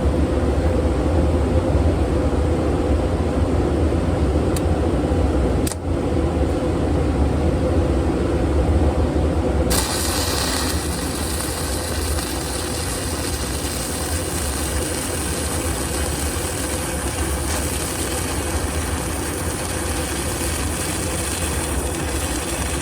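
Stick welding: a steady low hum with two brief clicks, then about ten seconds in the arc is struck and an even, steady hiss takes over and keeps going.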